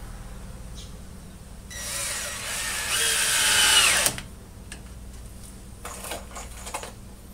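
Power drill running for about two and a half seconds, its whine rising in pitch and then dropping as it stops. A few light knocks follow.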